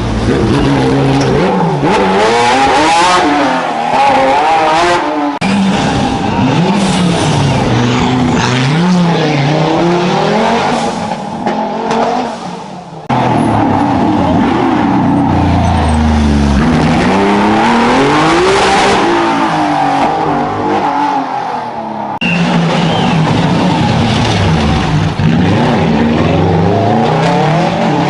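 Historic rally cars at speed on a special stage, engines revving hard and falling back with each gear change and lift, over and over. The sound breaks off and starts again suddenly about 13 and 22 seconds in.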